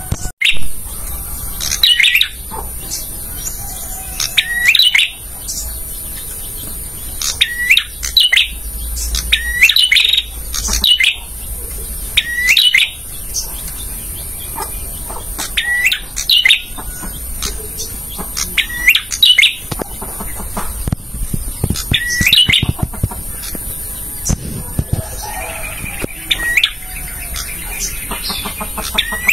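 Male prenjak, a small prinia, calling: sharp chirping notes in quick clusters of two or three, repeated every couple of seconds.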